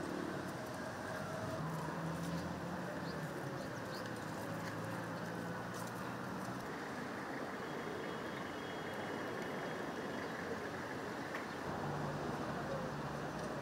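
Military vehicle engines running at idle: a low, steady hum that drops out and returns a few times, over constant outdoor background noise.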